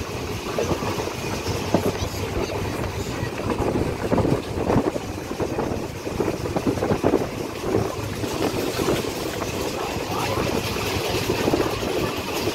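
Running noise of a moving passenger train heard from inside the carriage: a steady rumble with irregular rattling and clatter.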